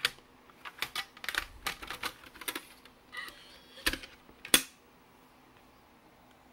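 Plastic CD caddy clicking and rattling as it is pushed into the slot of a Toshiba XM-3401B CD-ROM drive, then two sharp clacks, the second the loudest, about four seconds in as it seats.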